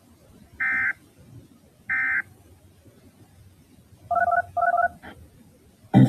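Three short squeals of EAS end-of-message data tones, about a second apart, closing a weather alert. Then two brief touch-tone (DTMF) beeps half a second apart, with a louder sound starting right at the end.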